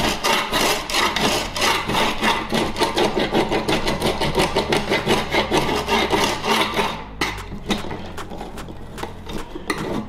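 A scraper blade drawn in rapid, repeated strokes across an aluminium rack tray, scraping off old heat-tape adhesive. The scraping stops about seven seconds in, leaving only a few fainter scrapes.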